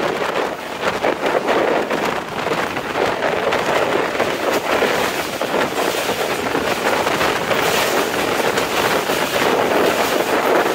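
Wind rushing past a moving passenger train coach and buffeting the microphone, over the running rattle of the carriage on the track. It is a steady, loud rushing noise with faint rapid ticks through it.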